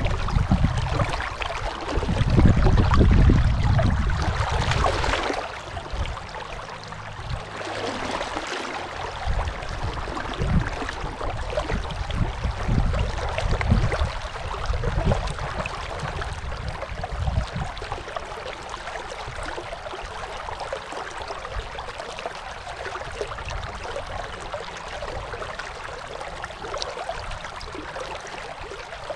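Water of the Dunajec river rushing, a steady hiss, with irregular low rumbles on top that are loudest from about two to five seconds in.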